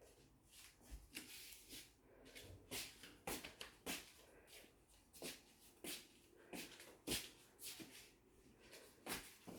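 Faint, irregular soft taps and shuffles in a small room, a couple each second, typical of footsteps and handling noise while someone walks through with the camera.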